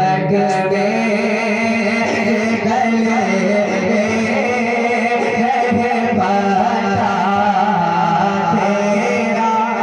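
A man singing a naat in long, drawn-out melodic lines.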